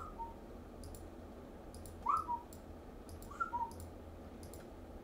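A man whistling short two-note phrases to himself, a rising note dropping to a lower one, three times: near the start, about two seconds in and about three and a half seconds in. Faint light clicks run underneath.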